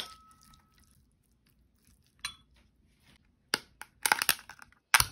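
Light clinks of a ceramic bowl, the first one ringing on briefly at a single pitch, a second lighter clink about two seconds in. Then scraping and rustling from handling a paper food tub and its lid, with a sharp knock near the end.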